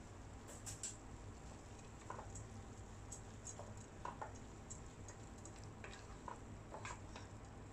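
Wooden spatula stirring sticky, syrup-coated boondi and nuts in a nonstick wok: faint, irregular light clicks and scrapes of the spatula against the pan.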